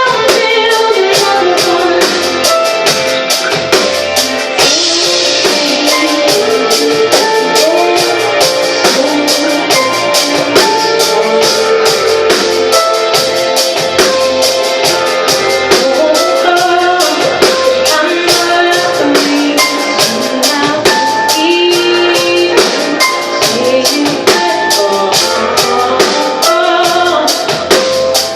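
Live band playing a pop song: drum kit keeping a steady beat under guitar and a melodic line, with some singing.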